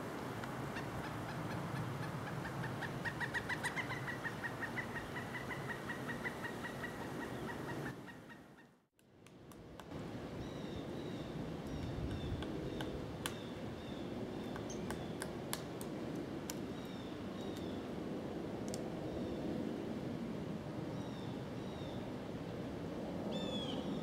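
Pileated woodpecker giving its long, rapid call series, a run of even notes lasting several seconds, over a low background rumble. After a brief dropout come scattered sharp knocks as the woodpecker pecks at the wood of a tree cavity, with short high chirps from small birds.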